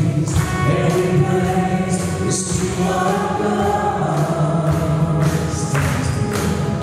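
Live Christian praise-and-worship song: a man and a woman sing into microphones over electronic keyboard accompaniment.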